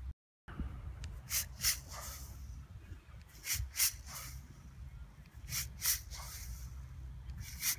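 Pairs of short, sharp hisses about every two seconds, in time with repeated rotational ball throws, over a steady low wind rumble on the microphone. The sound cuts out completely for a moment just after the start.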